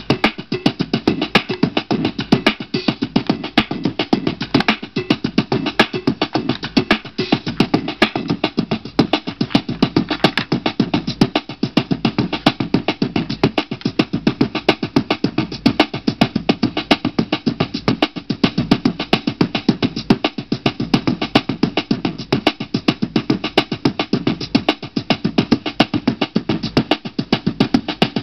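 Music with a steady drum beat playing from a CD on a Studebaker SB2150 Retro Edge Big Sound boombox, heard through its own speakers.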